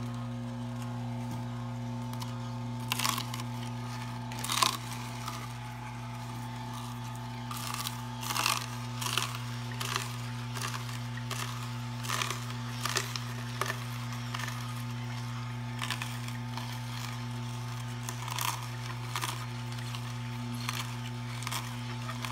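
Omega J8006HDS masticating juicer running: a steady low motor hum, with irregular crunching and cracking as the slow auger crushes the vegetables fed into it. The sharpest crack comes about four and a half seconds in.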